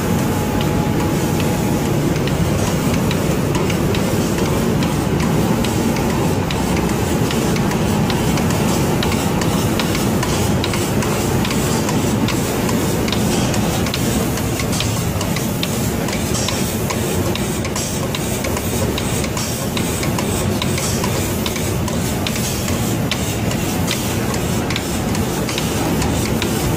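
Steady running noise of an automatic spray-painting line: hiss of the spray guns atomising paint, machinery running underneath, and fine rapid ticking throughout.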